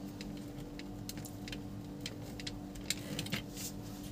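Scattered light clicks and taps of a screwdriver and wire being worked into the screw terminals of a plastic switch board, over a steady low hum.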